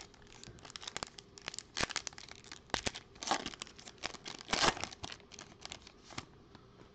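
Foil wrapper of a Panini Prizm football card pack crinkling and tearing as it is ripped open by hand: a run of irregular sharp crackles, loudest near the middle, that stop shortly before the end.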